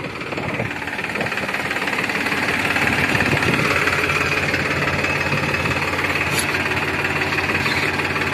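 Escorts Powertrac tractor's diesel engine running steadily under load while the tractor drags an 8-foot leveller full of soil in first gear high. It grows louder over the first few seconds and then holds an even, knocking beat.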